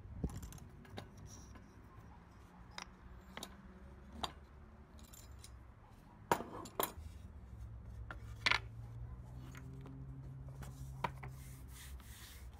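Scattered sharp metallic clicks and knocks of steel clamps being unscrewed, lifted off and set down on a wooden workbench, the loudest about six and a half and eight and a half seconds in.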